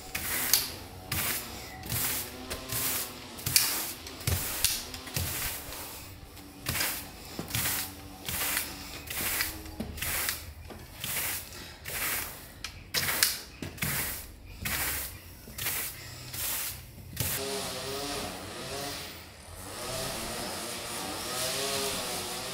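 Push broom scraping a dry sand-and-lime mortar mix across stone flagstones and into the joints, in brisk strokes about two a second. The sweeping stops about three-quarters of the way through, leaving soft background music.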